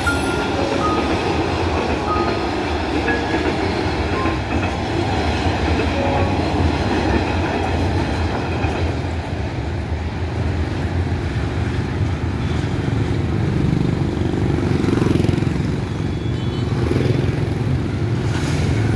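Freight train's boxcars rolling past a level crossing, wheels running on the rails, until the end of the train passes about midway. Then motorbike and car engines start up as traffic moves off over the crossing, growing louder near the end.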